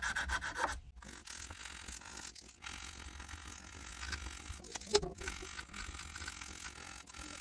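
Sandpaper-backed file rubbing and scraping along the edge of a Mossberg 930's aluminum receiver at the loading port, rounding off the sharp factory edge. A brief high-pitched scrape in the first second, then quieter rubbing and handling with a small click about five seconds in.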